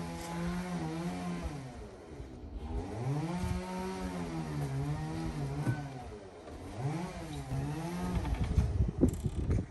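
Small engine of a walk-behind tractor rotary-tilling, its pitch falling and rising several times. Clattering and knocking near the end.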